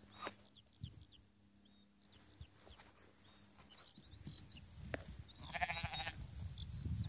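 A sheep gives one quavering bleat, under a second long, about five and a half seconds in. Small birds chirp high overhead throughout, and a low rumble on the microphone builds in the second half.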